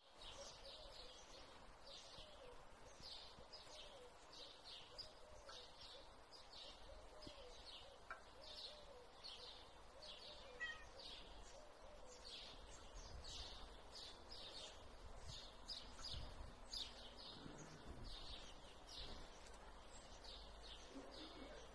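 Faint, repeated high chirps of a small bird, about two a second, against near silence.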